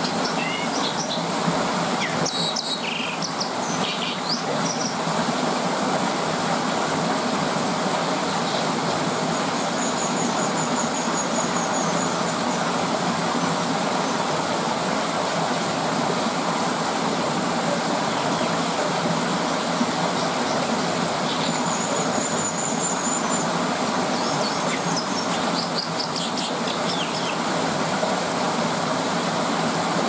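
A stream rushing steadily, with a white-throated dipper singing over it: clusters of short, high, scratchy notes near the start and again towards the end, and a high thin trill at about ten seconds and again at about twenty-two seconds.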